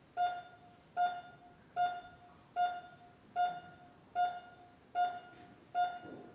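Hospital heart monitor beeping in time with a heartbeat: short, identical electronic beeps at a steady pitch, evenly spaced at about 75 a minute.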